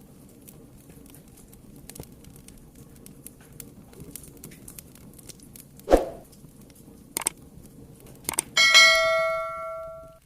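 Fireplace fire crackling with small scattered pops, a dull thump about six seconds in, then near the end a bell-like metallic ring that sounds for about a second and a half, fading, before cutting off suddenly.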